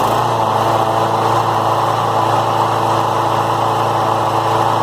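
Briggs & Stratton 190cc (8.5 hp) single-cylinder push-mower engine running steadily and loudly, started again after its carburetor was cleaned and the engine reassembled following a no-start.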